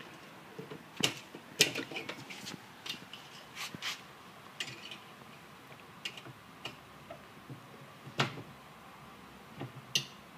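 Irregular clicks and clacks of soft-close drawer glides being handled and their plastic clip pieces unclipped, with a few sharper knocks, the loudest about a second in and near the end.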